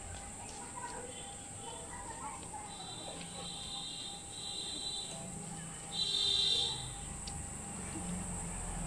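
Outdoor ambience: a steady high insect buzz, with a few short, high chirping calls over it, the loudest about six seconds in.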